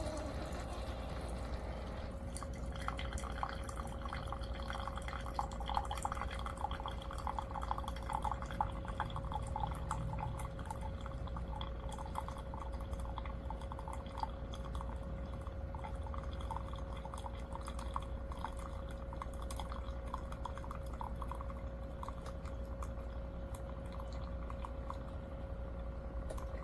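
CHULUX mini single-serve coffee maker brewing: the machine hums steadily while coffee trickles and drips into the cup. The dripping thins out over the last few seconds.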